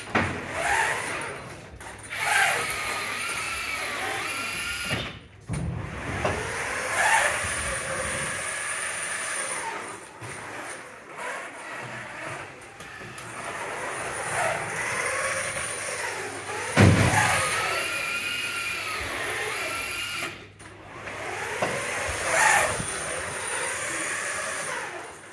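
FRC competition robot's electric drive motors whining, the pitch rising and falling again and again as the robot speeds up and slows down. Two heavy thumps break in, one about five seconds in and a louder one a little past the middle.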